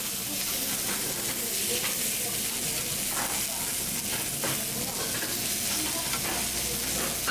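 Thick slices of pork belly, kimchi and bean sprouts sizzling steadily on a hot griddle plate over a gas flame, with a couple of faint clicks about halfway through.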